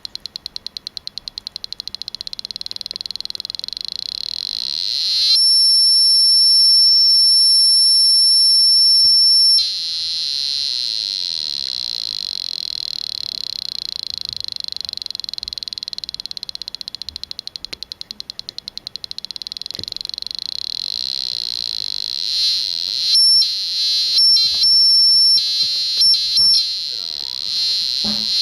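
Piezo buzzer sounding loud and high-pitched, its sound changing as the controlling potentiometer is turned: a fast even stream of clicks, then a louder steady tone for a few seconds, a rapid pulsing again, and near the end the tone cutting in and out in short bursts.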